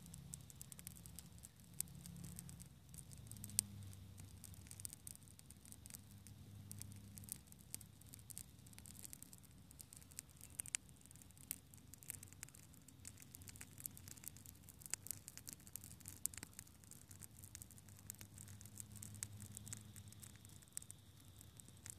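Faint, irregular crackling and popping of a small fire, many sharp ticks at uneven intervals over a faint low hum.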